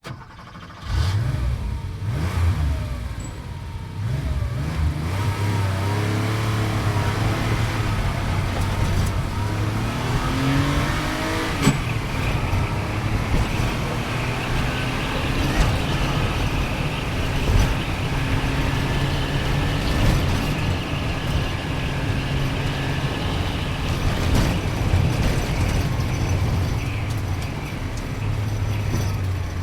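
Sports car engine, starting loudly about a second in, revving up and down through rising and falling pitch, then running steadily at speed.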